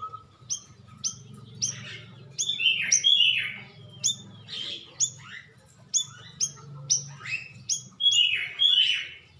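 Cucak rawis song used as a lure call: a fast series of sharp, high chirps, each dropping in pitch, mixed with longer falling whistled phrases, over a faint steady low hum.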